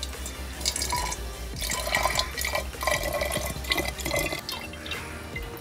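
Homemade ginger drink poured from a glass jug into a glass bottle, the liquid splashing and gurgling as the bottle fills.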